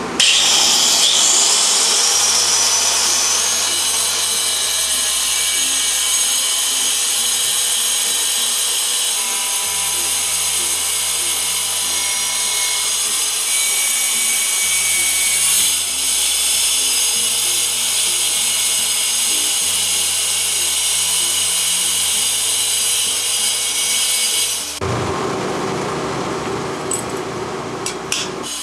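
Handheld electric tile cutter with a diamond blade cutting a tile. It starts with a rising whine as the blade spins up, then runs as a steady high whine with grinding, and stops suddenly about 25 seconds in.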